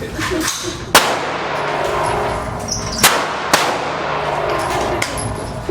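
Three gunshots, each with a short ringing echo: one sharp, loud shot about a second in, then two more close together about three seconds in.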